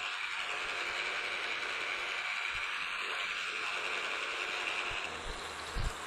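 Milling machine running with a steady high whine that drops away about five seconds in, followed by a few low knocks.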